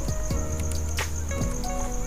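Background music: held notes with two deep drum hits that drop in pitch.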